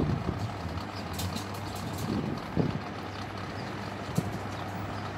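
Distant road traffic: a steady low rumble with a few brief low thumps.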